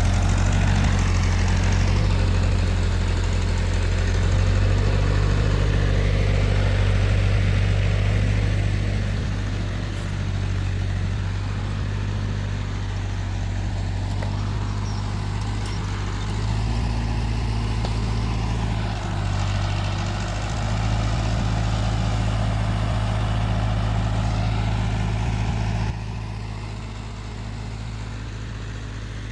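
Tractor engine running steadily with a deep, even hum; the level drops noticeably about 26 seconds in.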